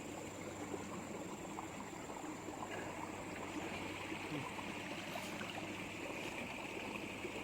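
Faint, steady hiss of running water. A higher, even hiss joins in about three seconds in, with no distinct knocks or splashes.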